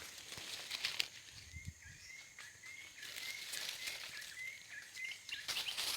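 Forest ambience with rustling. From about two seconds in, a short, slightly rising chirp repeats about nine times at an even pace of roughly three a second, then stops near the end.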